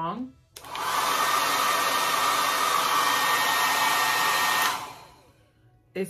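Brightup Dyson-style hair dryer switched on about half a second in, running loud and steady for about four seconds as a rush of air with a faint high whine, then switched off and dying away.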